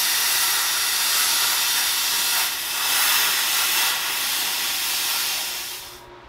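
Handheld plasma cutter cutting through a car's steel front shock tower: the steady hiss of the cutting arc and its air blast, which cuts off suddenly near the end.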